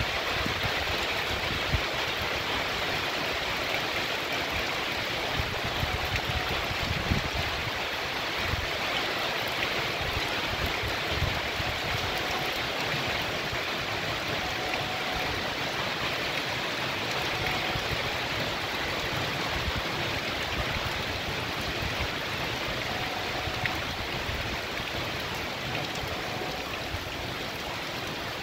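Heavy rain pouring steadily onto a wet paved street and the leaves of a tree, a dense, even hiss of falling water.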